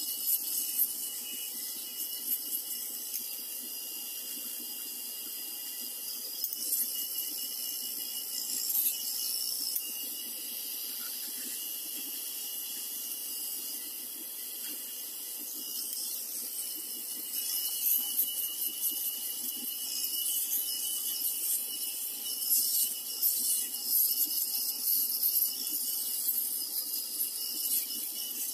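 Enchen Blackstone 3 rotary electric shaver running steadily against the skin, its three floating heads crackling as they cut beard stubble. The crackle gets busier about two-thirds of the way through.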